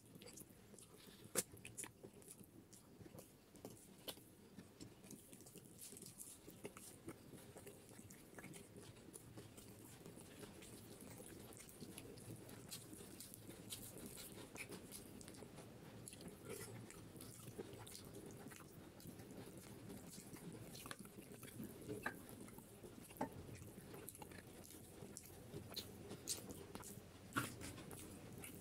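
Close-up eating sounds: a man chewing and biting beef head curry, with wet mouth sounds and many scattered sharp clicks, while his fingers tear meat from the cooked beef head.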